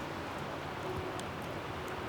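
A steady rushing noise with a few faint clicks, under a faint held note of the background music.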